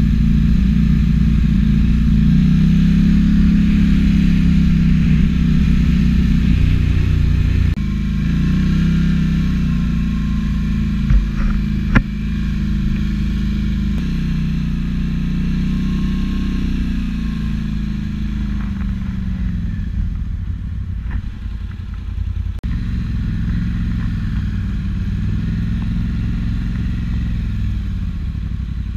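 ATV engine running as the quad is ridden along a rough dirt trail, its pitch rising and falling with the throttle. A couple of sharp knocks sound about eleven and twelve seconds in.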